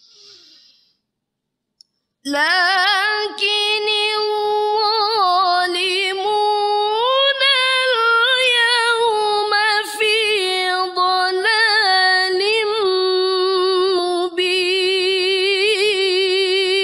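A woman reciting the Quran in the melodic, drawn-out competition style (tilawah), singing one long phrase of verse 38, 'lākini ẓ-ẓālimūna l-yawma fī ḍalālin mubīn', with long held notes and wavering ornaments. It begins about two seconds in after a short, faint breath.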